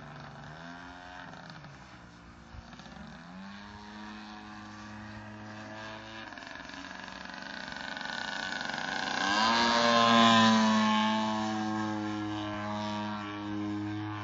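Single-cylinder two-stroke DLE 55cc gasoline engine of a large RC aerobatic airplane in flight, its pitch rising and falling with the throttle. It grows louder to a close pass about ten seconds in, the pitch dropping as the plane goes by, then runs on steadily.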